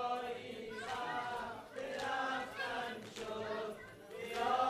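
A group of men chanting a Persian Muharram lament (nauha) together, the voices holding and bending long sung notes.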